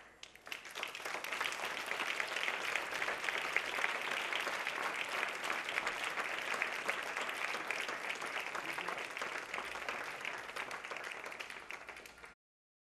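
Theatre audience applauding, building up within the first second and holding steady, then cut off suddenly near the end.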